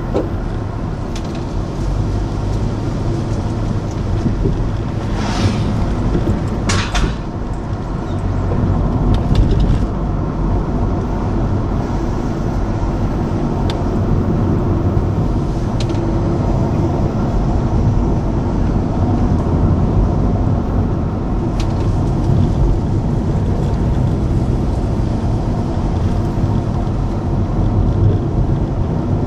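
Car driving on a narrow, rough country road, heard inside the cabin: a steady engine and tyre rumble, with a few short knocks around five to seven seconds in.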